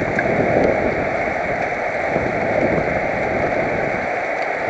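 Wind rushing over a helmet-mounted camera's microphone on a road bike at race speed: a steady, even rush of noise.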